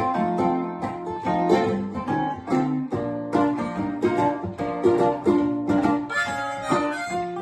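Acoustic guitar fingerpicking an instrumental folk passage; about six seconds in, a harmonica joins with sustained notes.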